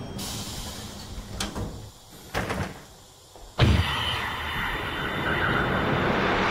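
Lift's sliding doors working: a few faint clicks, then a sudden heavy thud about three and a half seconds in, followed by a steady rushing noise.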